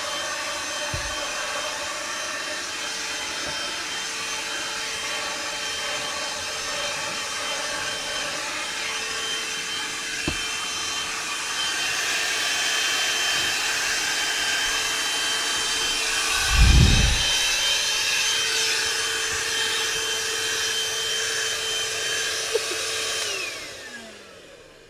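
Einhell PXC TE-VC 18 Li cordless hand-held vacuum cleaner running steadily with a high motor whine, with one loud thump partway through. Near the end it is switched off and the whine falls away as the motor spins down.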